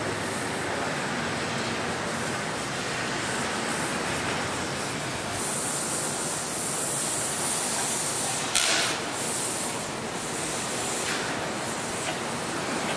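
Steady rumble and hiss of heavy machinery at work, with a higher hiss from about five to eight seconds in and a brief sharp burst of noise near nine seconds.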